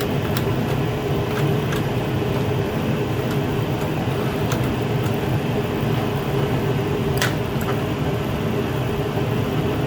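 Steady mechanical hum with a constant tone, broken by a few light clicks from a plastic windshield washer nozzle being worked into place.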